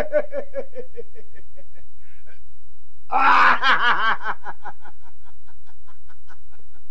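A man laughing in quick repeated ha-ha pulses that trail off, then a second, louder burst of laughter about three seconds in that slowly dies away. A steady low hum from the old film soundtrack runs underneath.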